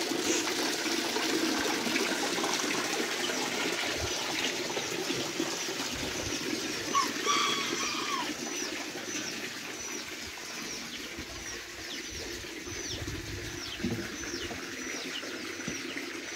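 Spring water pouring from a pipe into a concrete tank, a steady splashing rush that slowly grows fainter. Birds call over it, one repeating a high, falling chirp about once a second in the second half.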